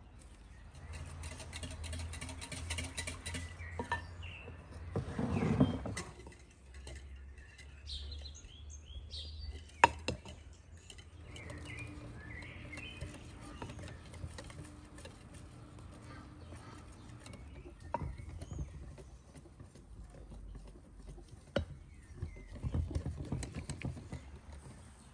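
Metal wire whisk stirring batter in a glass mixing bowl, with a few sharp clinks against the glass. Small birds chirp faintly in the background.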